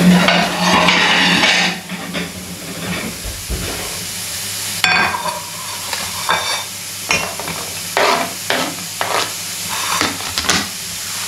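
Chopped onions frying in hot rapeseed oil in a pan, a steady sizzle. A scraping noise comes in the first two seconds, and a run of sharp knocks and clicks of kitchen utensils follows from about five seconds in.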